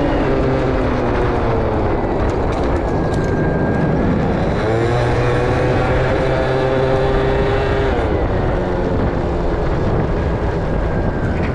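Yamaha Passol scooter with a Jog engine under way: its engine note sinks as it slows, rises again about four seconds in and holds steady for a few seconds, then eases off, over a steady rush of wind and road noise.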